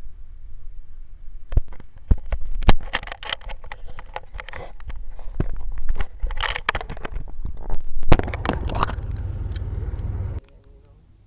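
Handling noise of an action camera being fumbled with in the hand: many clicks, knocks and scrapes of fingers and plastic right on the microphone, over a low rumble. The rumble and handling cut off suddenly near the end, leaving it much quieter.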